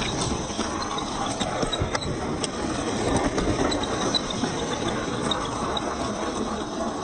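RC4WD TF2 scale crawler truck's tyres spinning and crunching on rock and loose gravel, with a dense crackle of small stones scattering and rattling.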